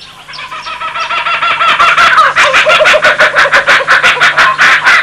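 Laughing kookaburra calling: a rapid run of repeated laughing notes that builds in loudness over the first two seconds and cuts off suddenly near the end.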